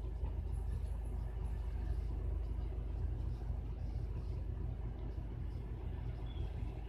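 Steady low rumble of a running city bus, heard from inside the passenger cabin.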